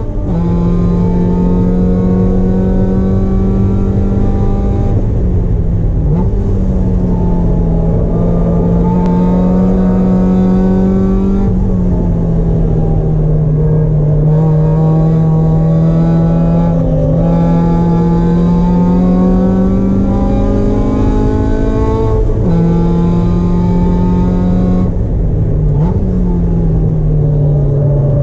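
Mazda Miata race car's four-cylinder engine at high revs through a hot lap, heard from inside the stripped cabin. Its pitch drops and climbs back several times across the lap.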